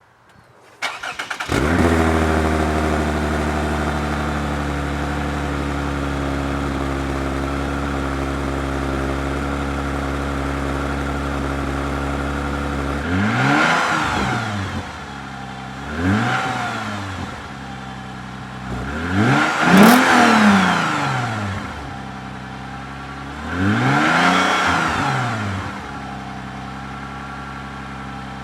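A 2007 Lexus IS350's 3.5-litre V6 is started cold through a Megan Racing axle-back exhaust. It catches about a second in and holds a steady, deep-toned fast idle, then is revved four times, the third rev the highest, and settles to a lower, quieter idle.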